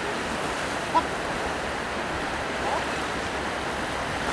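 Sea surf washing onto a beach: a steady rush of waves, with a short high-pitched call about a second in and a fainter one near the three-second mark.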